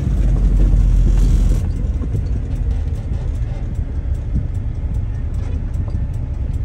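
Heavy truck on the highway: a steady low rumble of engine and road noise, louder for about the first second and a half, then easing slightly.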